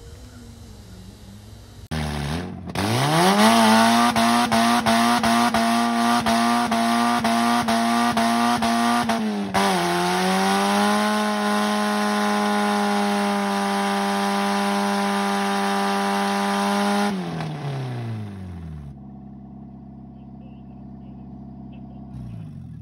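Mazda Miata four-cylinder engine revving hard in a stationary burnout, its rear tyres spinning and squealing with a loud hiss. It climbs to high revs about two seconds in and holds there, stuttering rapidly and evenly for the first several seconds, dips briefly near the middle and climbs again, then drops back to a low idle about three quarters of the way through.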